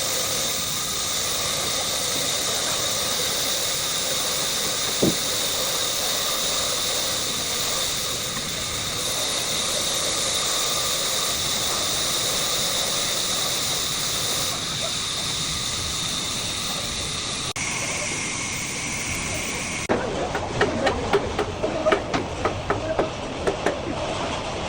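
Sawmill saw running and cutting through timber: a steady hiss with a high whine. The pitch of the whine changes about three-quarters of the way through, and irregular knocking and clatter of wood follow near the end.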